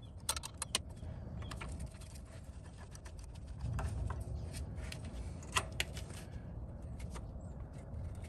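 Socket wrench and extension clinking on metal while the AC belt idler pulley's tensioner bolt is backed off: a few sharp, irregularly spaced clicks over a low steady rumble.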